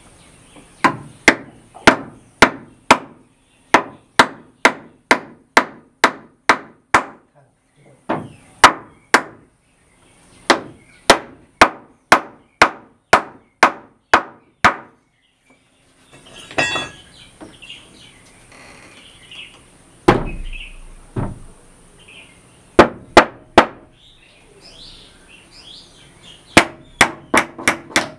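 Hammer striking in quick runs of sharp blows, about two to three a second, with pauses between the runs, during the fitting of a wooden door. A short rattle and a couple of duller thuds come in the middle, between the runs.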